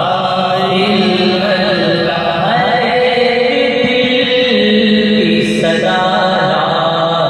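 A voice chanting a kalam, a devotional poem, in long held notes with wavering, ornamented melodic turns.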